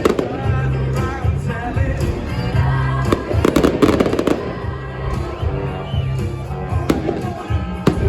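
Fireworks going off: single bangs near the start, about a second in and near the end, and a rapid crackling cluster of bursts about three and a half seconds in, over music with a steady bass beat.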